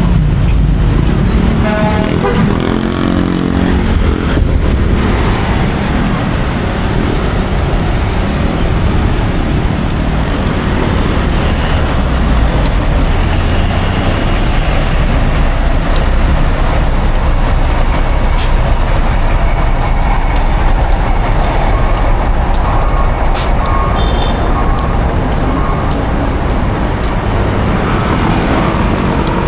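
Steady, loud road traffic on a busy city avenue: trucks, buses and cars running past.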